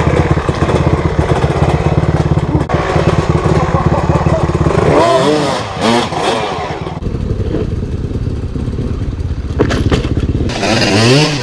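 Dirt bike engines running, with several quick revs rising and falling about five seconds in. After that the engine sound drops back, and near the end a motorcycle revs up again.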